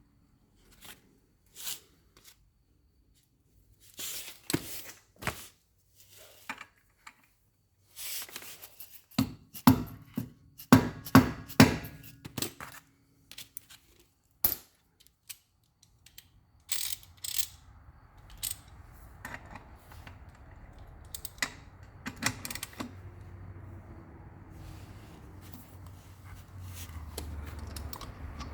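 Lug bolts and sockets being handled: scattered metal clicks and clinks, with a cluster of loud ringing metal knocks about ten to twelve seconds in.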